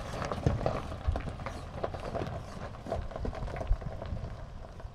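Footsteps crunching on loose stones and gravel: an uneven run of short crunches, several a second.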